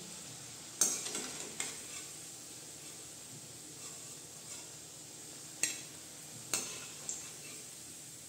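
Cabbage pakoras frying in hot oil in a kadai, with a low steady sizzle. A metal slotted spatula knocks and scrapes against the pan about five times as the fried pakoras are lifted out.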